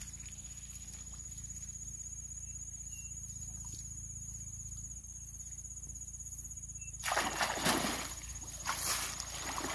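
Water splashing and sloshing, starting suddenly about seven seconds in and coming again near the end, as a hooked alligator thrashes at the pond surface. Before that only a low steady hum is heard.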